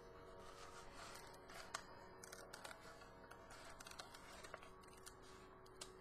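Faint crackling and light clicks of the clear plastic release film being peeled back from a diamond painting canvas, a few small irregular ticks over a low steady hum.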